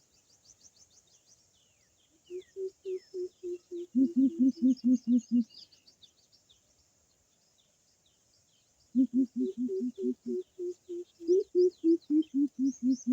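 Greater coucals calling: runs of deep, evenly spaced hoots, about four a second, one about two seconds in and another from about nine seconds on, at times two birds at slightly different pitches hooting together. Small birds chirp and trill faintly in the background.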